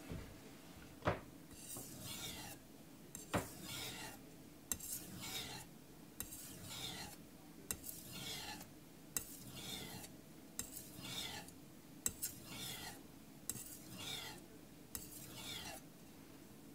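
Carbon-steel (aogami) knife blade stroked across a soaked Kitayama 8000 finishing whetstone: about ten scraping strokes, each falling in pitch, roughly one every one and a half seconds. Two sharp clicks come in the first few seconds.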